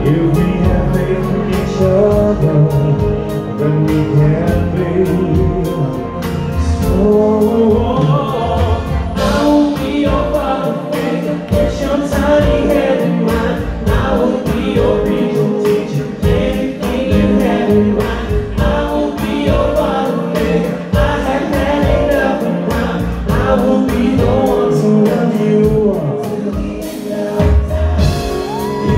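Live pop band playing, with a male lead singer and female and male backing singers singing together over the beat.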